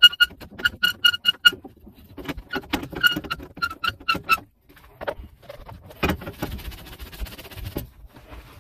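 A tubing cutter being turned around a copper pipe, giving short ringing, squeaky metal clicks about four to five times a second in two runs. Near the end comes a rasping scrape lasting nearly two seconds.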